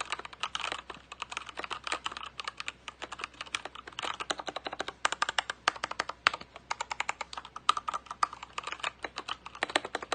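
Anne Pro 2 60% mechanical keyboard with Gateron Brown switches being typed on quickly, a dense run of irregular key clicks and clacks.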